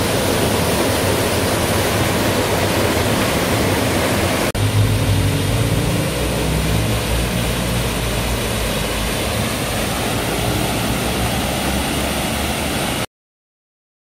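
Small waterfall of three streams splashing into a shallow pool: a steady rushing of falling water. About four and a half seconds in the sound changes abruptly and a deeper rumble joins it, and about a second before the end it cuts off to silence.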